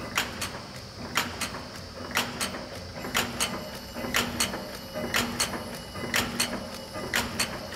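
Sacma SP25/U four-die progressive cold header running: a pair of sharp clacks from its mechanism about once a second, over a low steady hum.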